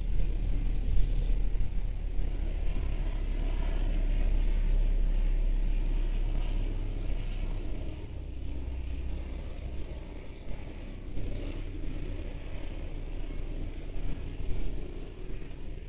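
A motor vehicle passing: a low engine-and-tyre rumble that builds to its loudest about five seconds in and then fades away.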